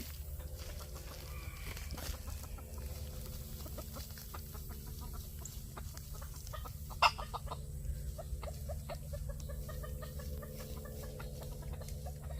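Bantam Phoenix rooster clucking in short, scattered calls, with one sharp, louder call about seven seconds in, over a steady low hum.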